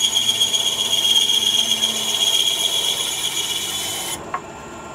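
Bandsaw with a quarter-inch blade cutting through a small block of wood: a steady high whine with sawing hiss. About four seconds in the cutting sound stops abruptly, leaving the saw running more quietly, with a faint click just after.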